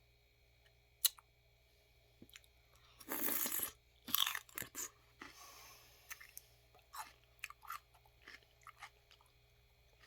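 Biting and chewing raw celery: a loud crisp crunch about three seconds in, another about a second later, then a run of smaller crunches as it is chewed.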